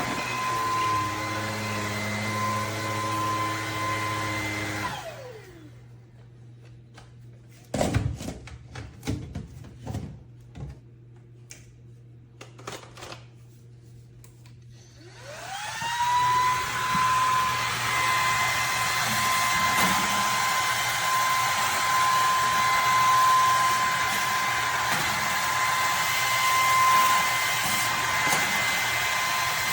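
Bissell PowerClean cordless stick vacuum running with a steady high whine, then switched off about five seconds in and winding down. A few knocks and clicks follow. About fifteen seconds in it is switched back on, spins up and runs steadily again.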